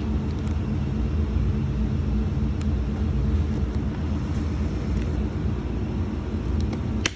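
A steady low rumble of running machinery, with a few faint clicks and one sharp click near the end.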